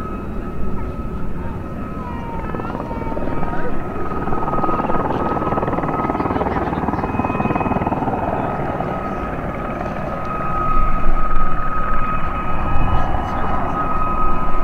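Two Aérospatiale Gazelle helicopters flying a display, their rotors and turbines running with a steady high whine throughout. The sound grows louder, with more low rumble, about ten seconds in.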